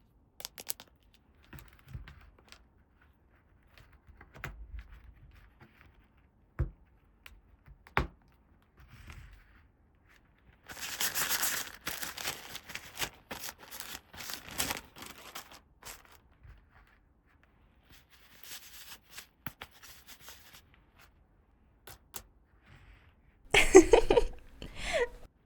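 Toy packaging being torn open and crinkled by hand, with small plastic clicks and taps between. There are two long stretches of tearing, the loudest near the end.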